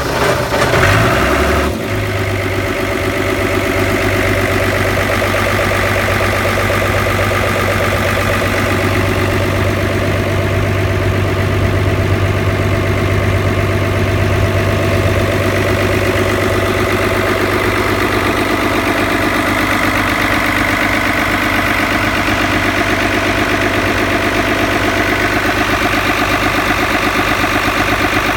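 The Halmatic 9.3 RIB's starboard engine, just started from cold, runs unevenly for about the first two seconds and then settles into a steady idle.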